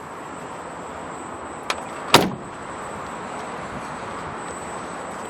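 Door of a GAZ Gazelle Business Farmer van cab being shut: a light click, then a single loud thud about two seconds in, over a steady background hiss.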